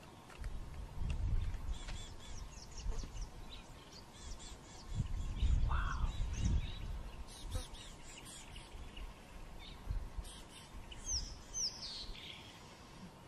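Wild birds chirping and whistling in short repeated series, with a few falling whistles near the end, over irregular low rumbling that is loudest about halfway through.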